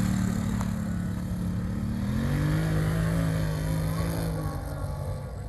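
ATV engine running, its pitch shifting about two seconds in and the sound fading away near the end.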